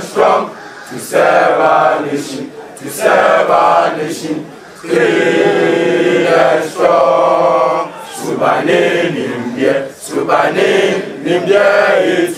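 A crowd of students chanting together, led by two cheerleaders, in short phrases separated by brief breaks: a school chant.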